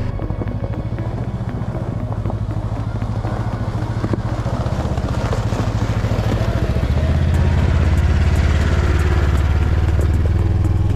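Side-by-side UTV engine running while driving, growing louder about two-thirds of the way through as it pulls harder.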